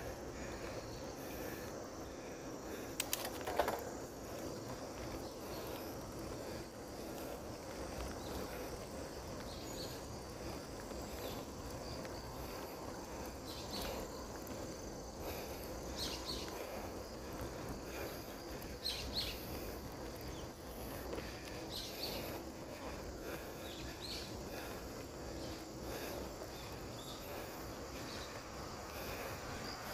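Steady outdoor background noise with short, faint high chirps every few seconds and a brief cluster of clicks about three seconds in.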